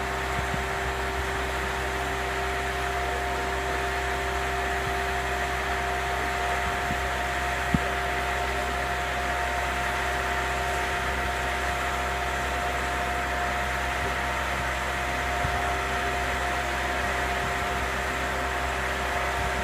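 Boatyard travel lift running steadily as it lowers a sailboat in its slings: a constant engine and hydraulic hum with a steady whine, and one brief knock near the middle.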